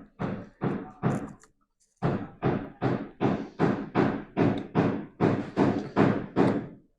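A run of sharp, evenly spaced knocks, about two and a half a second: a few in the first second and a half, a short pause, then about a dozen more in steady rhythm until near the end.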